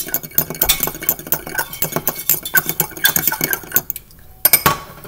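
A metal fork beating egg yolks in a small glass bowl, with rapid clinking strokes against the glass. The beating stops about four seconds in, and two sharp knocks follow shortly after.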